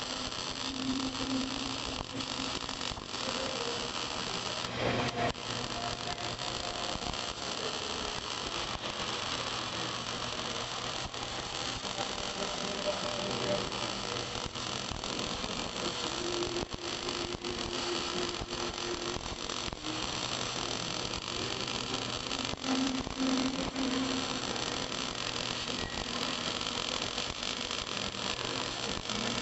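MIG welding arc crackling and hissing steadily through a vertical weld, running 1.0 mm wire at a wire speed of 180 and 21 volts on 20 mm plate.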